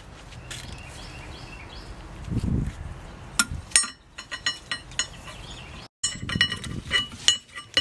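Metal clinking and tapping, a series of sharp clicks with short ringing tones, after a low thump about two and a half seconds in.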